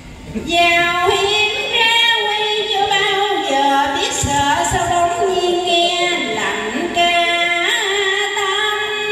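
A woman singing a Vietnamese song into a microphone over a backing track, holding long notes that slide from pitch to pitch.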